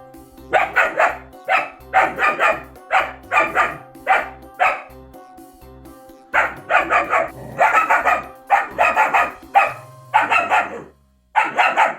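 German shepherd puppy barking in quick runs of sharp barks, with a short pause about midway, barking at its reflection in a mirror. Quieter background music with a steady low beat runs underneath and fades out near the end.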